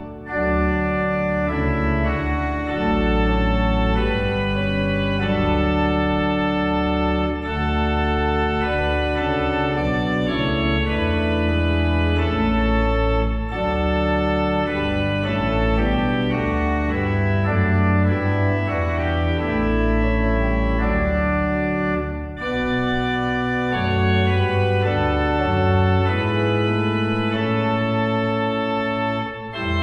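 Church organ playing a hymn in sustained full chords that change every second or two, with short breaks between phrases about 22 seconds in and just before the end.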